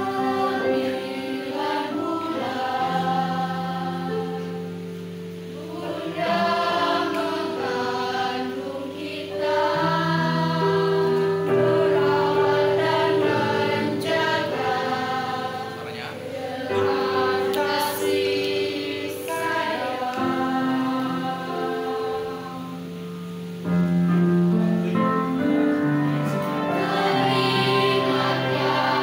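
Children's choir of girls singing an Indonesian song in unison phrases over keyboard accompaniment with long held chords.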